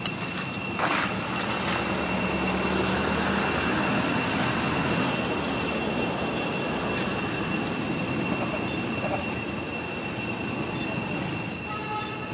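Steady outdoor ambience: a constant high-pitched drone over a background hiss, with one sharp click about a second in.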